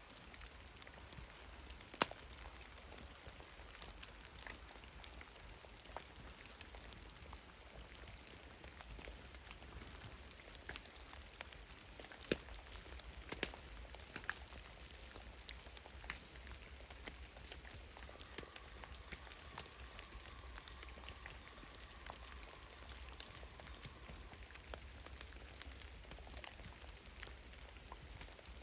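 Meltwater drops falling from melting snow in a forest: irregular soft ticks and patters over a faint steady hiss, with a few louder single drips about two seconds in and again around twelve to thirteen seconds. A faint steady tone sits in the background for several seconds past the middle.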